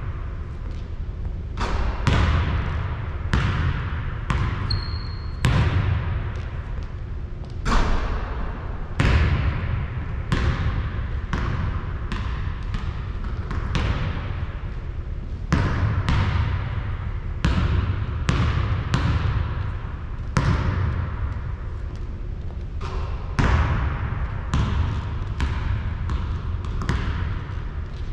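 Basketball bouncing on a hard court, a thud every second or so, each with a ringing tail. There is a short high squeak about five seconds in.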